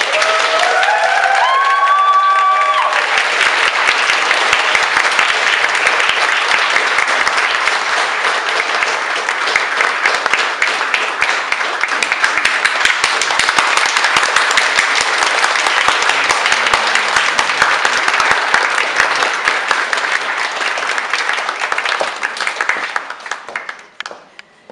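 Theatre audience and cast applauding, a dense, steady clapping that dies away near the end.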